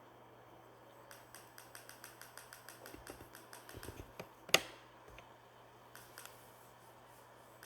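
Small plastic keys on a wireless air mouse remote being pressed in quick succession, several clicks a second, with one much louder, sharper click about four and a half seconds in.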